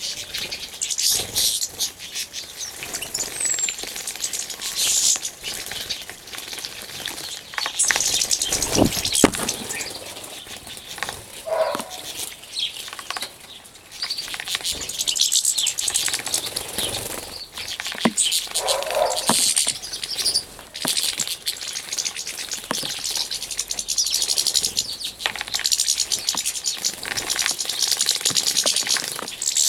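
Small finches, European goldfinches and serins, bathing in a shallow water trough: continual splashing and wing-fluttering in the water, with a few high chirps.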